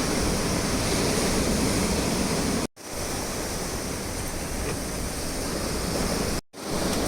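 Typhoon surf breaking against coastal rocks: a continuous rushing roar of water. The sound cuts out abruptly twice, briefly each time.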